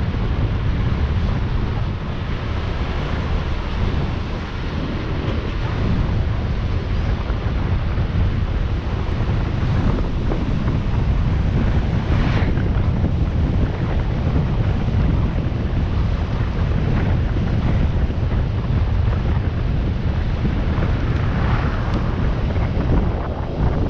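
Steady wind rushing over the microphone of a camera on a moving motorcycle, a dense low rumble with no clear engine note above it.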